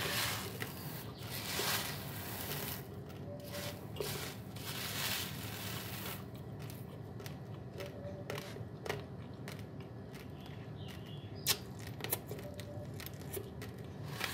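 Raw basmati rice: dry grains rustling as a hand stirs through them in a plastic tub, with sharp clicking cracks of grains being crunched, two of them louder about eleven and twelve seconds in.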